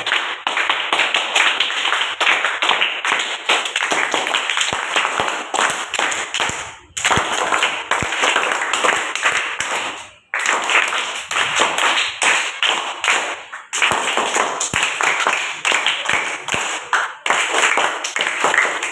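A class of children applauding, many hands clapping together in a dense, continuous patter that stops abruptly for a moment twice around the middle.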